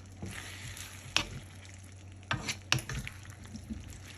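Beef lo mein with vegetables sizzling in a frying pan as it is stirred. The stirring utensil clicks against the pan about a second in and twice more a little past the middle.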